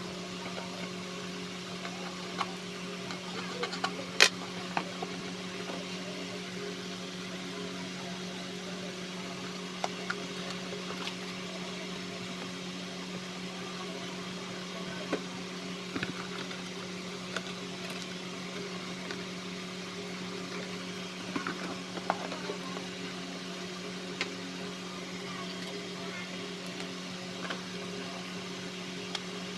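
A steady low hum of a small motor or appliance, with scattered light taps and clicks as a cardboard box and craft tools are handled. The sharpest click comes about four seconds in.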